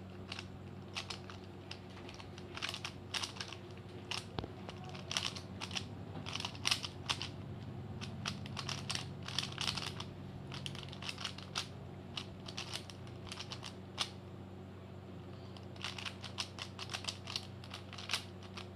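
Plastic 3x3 Rubik's cube being turned rapidly by hand in a speed solve: quick runs of clicking and clacking as the layers snap round, with short pauses between move sequences, over a steady low hum.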